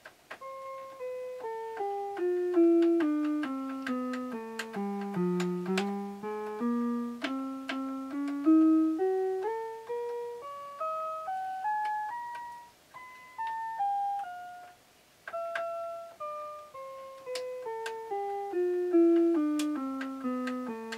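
The built-in electronic keyboard of a Fisher SC-300K boombox plays through its own speakers. Single notes, each struck and fading, run down a scale, climb back up and come down again, with a short pause about two-thirds of the way through.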